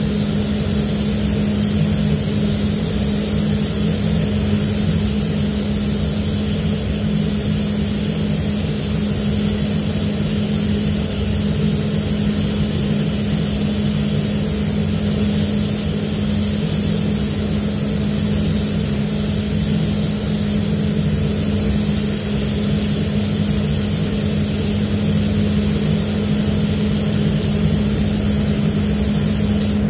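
Paint spray booth's ventilation fans running steadily: a constant low hum under an even hiss of rushing air.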